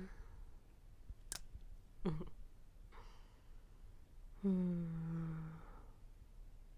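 A woman's soft wordless vocal sounds, close to the microphone: a short murmur about two seconds in and a longer held hum or sigh about halfway through. A single sharp click comes a little over a second in.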